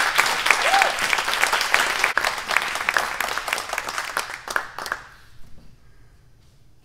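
Audience applauding, with dense clapping that thins out and dies away about five seconds in.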